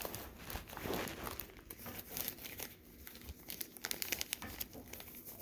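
Small plastic jewelry bag crinkling as it is handled, in irregular short rustles, while earrings are put back into it.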